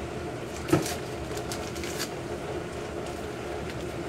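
A small paper packet being handled and torn open, heard as faint rustles and ticks, with one sharp knock about a second in, all over a steady kitchen hum.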